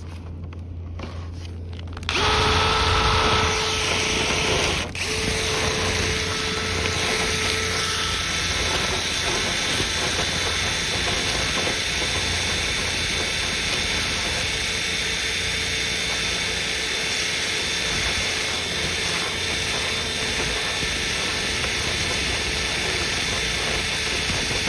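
A power tool used to clean a dryer vent duct starts about two seconds in and runs steadily, with a brief dip about five seconds in.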